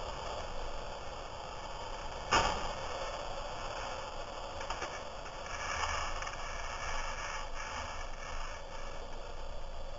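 Steady wind and road noise on a camera riding a motorcycle through traffic, with one sharp knock about two seconds in.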